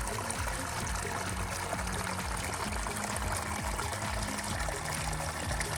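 A small stream trickling, with background music underneath: held low notes and a steady low beat.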